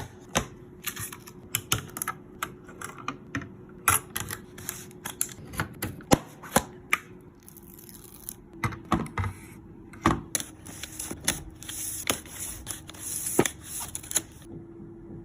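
Irregular sharp clicks, taps and rustles of computer parts being handled and snapped into place during a PC build, over a faint steady hum. The clicking stops shortly before the end.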